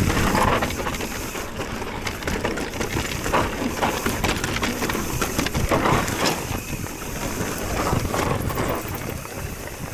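Mountain bike descending a rough trail: tyres rumbling over dirt and stones, with the frame and parts rattling and knocking over bumps.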